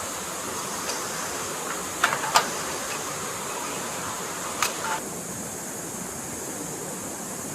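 Stream water flowing steadily over a steady high hiss, with a few sharp knocks about two seconds in and another pair just past halfway.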